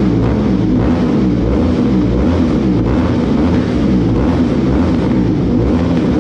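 Ducati Supersport S's L-twin engine running through an Akrapovič full titanium exhaust, held at a loud, even level with no big rises or drops in revs.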